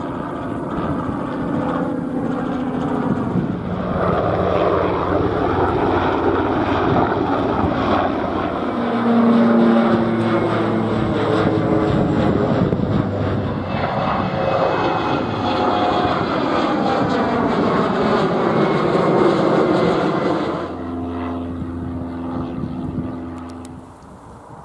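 Propeller aircraft passing low overhead: a loud engine and propeller drone whose pitch slides downward as it goes by, then fading away near the end.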